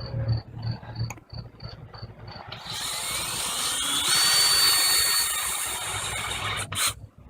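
Electric drill boring out a broken exhaust manifold bolt. It starts with a light, regular ticking of about three ticks a second. About two and a half seconds in, the drill runs at full speed, its whine rising and then holding steady, and it stops just before the end.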